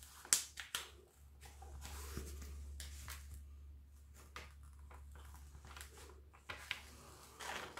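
Plastic protective sheet on a diamond-painting canvas being peeled back and folded over from the adhesive, giving faint crinkling with a few sharp crackles, over a low steady hum.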